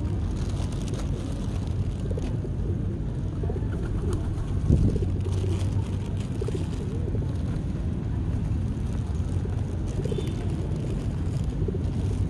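Pigeons cooing over a steady low hum, with scattered light clicks and one louder thump a little before halfway.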